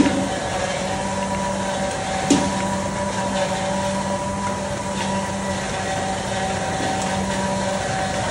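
Steady mechanical hum with a few constant tones running through it, with a sharp clink about two and a half seconds in.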